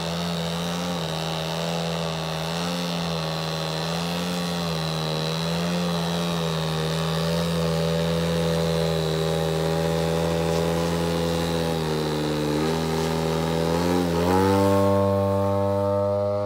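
Propeller and motor of a radio-controlled aerobatic airplane holding a nose-up hover, its pitch wavering gently with small throttle corrections. Near the end the pitch rises sharply as the throttle is opened and the plane powers out of the hover and flies away.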